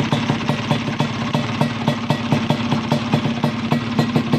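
Bored-out motorcycle engine idling steadily, its exhaust pulses coming evenly with no change in speed.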